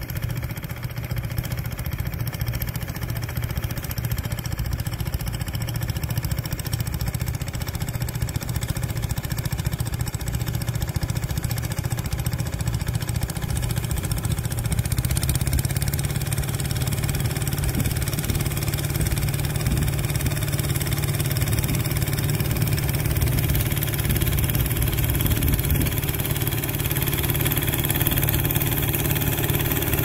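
Small vintage tractor's engine running steadily while pulling a two-furrow plough, growing gradually louder as it comes closer; its note steps up slightly about halfway through.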